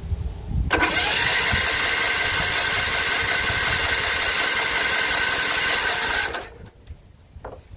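18 hp Kohler engine of an Ariens Zoom zero-turn mower being cranked by its electric starter, on starter fluid and choke, turning steadily for about five and a half seconds and then stopping abruptly. It does not run right: the engine has a broken connecting rod.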